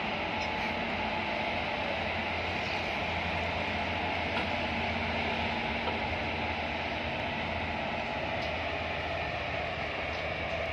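Two coupled Indian Railways electric locomotives running past, giving a steady hum with the rumble of wheels on the rails.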